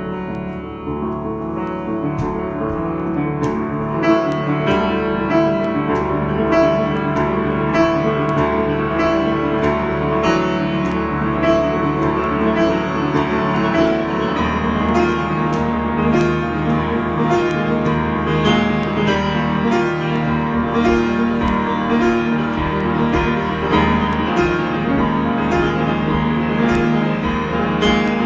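Piano improvisation: sustained chords with notes struck over them, growing louder over the first few seconds.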